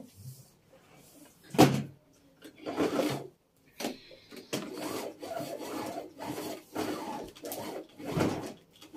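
Household cleaning and handling noises: a sharp knock about a second and a half in, then a run of irregular rubbing and scraping sounds with a few more bumps.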